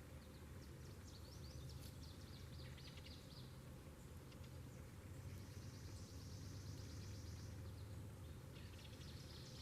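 Faint outdoor ambience: a small bird sings short, rapid, high trills three times, each about two seconds long, over a steady low hum.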